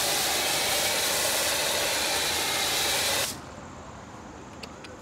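Electric high-pressure washer spraying foam through its foam lance: a steady loud hiss that stops suddenly about three seconds in.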